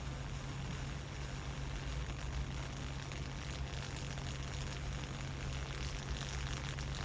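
High-voltage arc from a microwave oven transformer burning steadily across the gap between its output wires: a continuous low buzzing hum with a steady crackling hiss over it.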